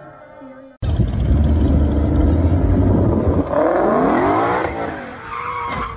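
Ford Mustang revving hard while spinning its rear tyres and sliding sideways in a burnout. The engine cuts in suddenly about a second in, sweeps up and down in pitch, and the tyres give a high squeal near the end.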